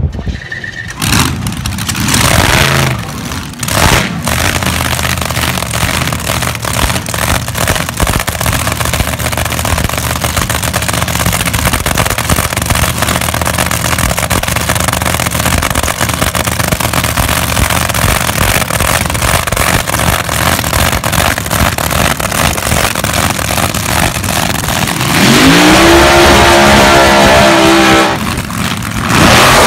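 Drag racing engines running steadily at the start line. About 25 seconds in, one dragster revs very loudly with the pitch rising for a burnout. It cuts off after about three seconds, and another loud rev starts near the end.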